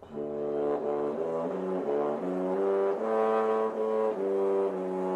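Intro music: a slow run of held chords that change every half second or so, settling into one long held chord about four seconds in.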